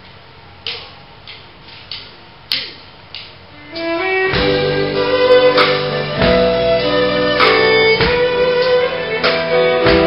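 Start of a fiddle instrumental: a few soft percussive taps about every half second, then about four seconds in the band comes in, with the fiddle playing long, sustained notes over drums.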